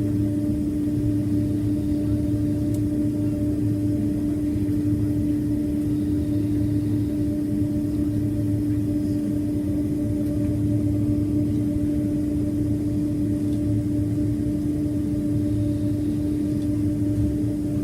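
Steady cabin hum of a Boeing 767, its engines running at a constant low setting: an even drone with a strong steady tone that does not rise or change.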